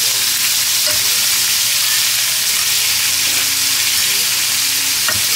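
Shrimp frying in hot oil with garlic in a frying pan, a steady sizzle, with a few light clicks of a fork turning the shrimp against the pan.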